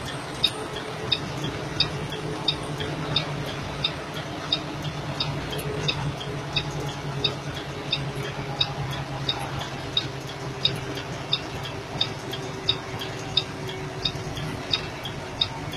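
Vehicle indicator flasher clicking steadily, about three clicks every two seconds, over the low steady drone of the engine and road inside the cab.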